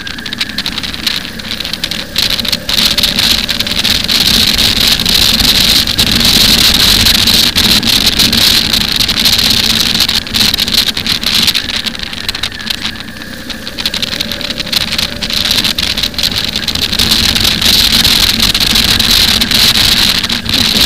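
Motorcycle riding along at road speed: a steady engine note under loud wind rush and buffeting on the bike-mounted microphone. The rush eases twice, about two seconds in and again around thirteen seconds, as the bike slows.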